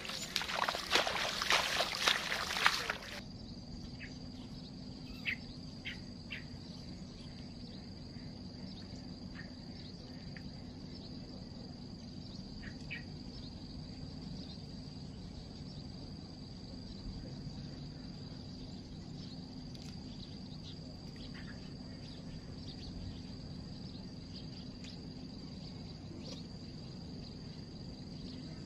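Crickets and other insects chirring steadily, with one constant high tone over the chorus, a low steady hum beneath it and a few faint scattered chirps. For about the first three seconds loud sloshing water noise covers them.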